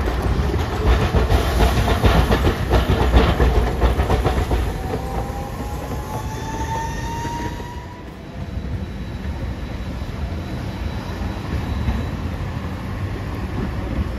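Streetcar wheels clattering over the rail crossing and joints in a quick run of clicks, with a rising whine near the middle. After that comes steadier rolling noise as a Green Mover low-floor tram goes by.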